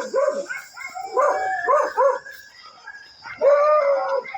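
Dogs barking in short volleys of several barks, then one longer, drawn-out call near the end.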